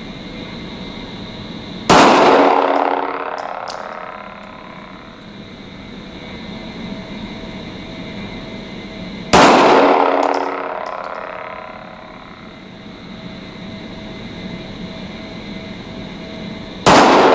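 Three single shots from a 9×19 mm Glock 17 pistol, fired slowly about seven and a half seconds apart. Each crack rings out in a long echo in the indoor range and is followed by a faint high clink.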